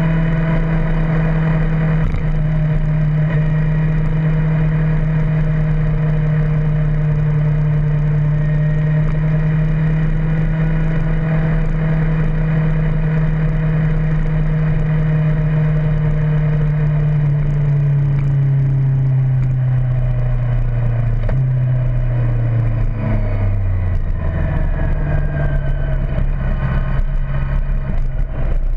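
Motorcycle engine running at a steady speed with wind noise over it. About two-thirds of the way through its note falls over several seconds as the bike slows, then settles into a lower, steadier note near the end.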